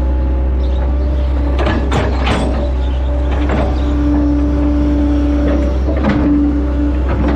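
Hitachi Zaxis 110 hydraulic excavator at work, heard from the operator's cab: the diesel engine runs under a steady drone with a whine on top that grows louder about four seconds in as the boom and arm move. Several short clunks and rattles come through, around two seconds in and again near six seconds.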